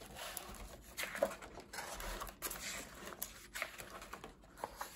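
Pages of a hardcover picture book being turned and pressed flat by hand: paper rustling and sliding, with a few short crisp clicks and taps.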